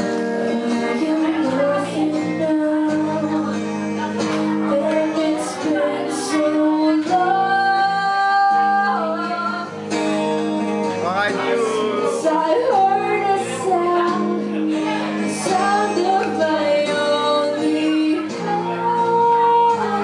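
A woman singing into a microphone over guitar accompaniment, holding one long note about seven seconds in.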